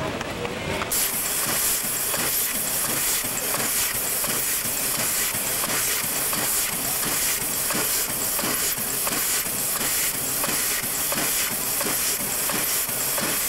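Steady steam hiss from Mitsubishi Type 80 steam locomotive No. 851, coming in about a second in.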